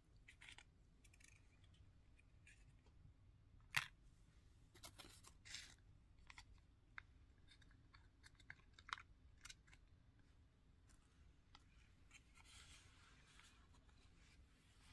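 Small plastic pieces clicking and tapping as miniature toys and their tiny packages are handled and set into a miniature plastic shopping cart, the sharpest click about four seconds in. A soft rustle of packaging follows near the end.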